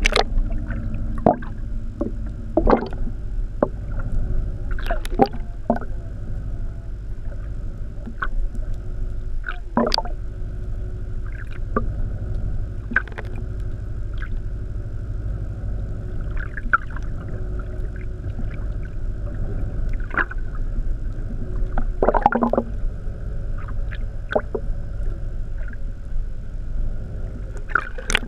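Underwater sound picked up by a camera held below the surface: a steady low rumble and hum, with scattered clicks, knocks and splashes every second or two.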